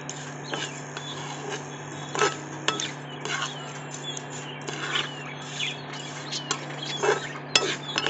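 A metal spatula scraping and clinking against a non-stick frying pan, stirring and toasting dry vermicelli strands in irregular strokes over a steady low hum.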